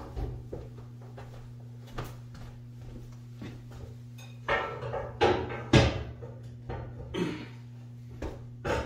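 A handful of sudden metal clanks and knocks, the loudest about six seconds in, from work at the base of a motorcycle lift, over a steady low electrical hum.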